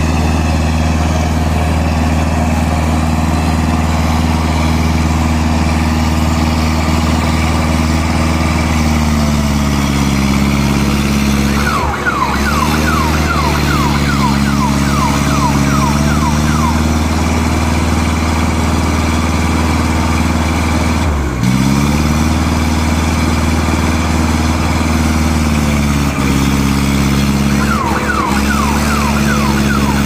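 Ajax Fiori Argo 2000 self-loading concrete mixer's diesel engine running steadily as the machine works its loading bucket into an aggregate pile; the engine note sags briefly twice, about twelve and twenty-one seconds in, as it takes load. In the middle and again near the end, rapid short falling squeaks sound over the engine.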